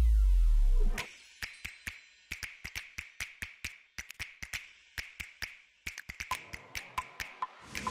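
Background percussion music. A falling bass sweep cuts off about a second in, then comes a sparse passage of light, dry taps and clicks in an uneven rhythm.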